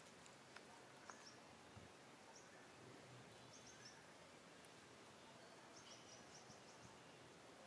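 Near silence: faint outdoor background with a few short, high chirps scattered through, several close together about six seconds in.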